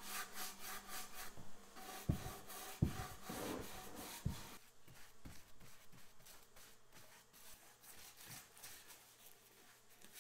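Paintbrush stroking exterior semi-gloss paint onto wooden beehive parts: a quick run of brush strokes with a few light knocks, growing fainter after about four and a half seconds.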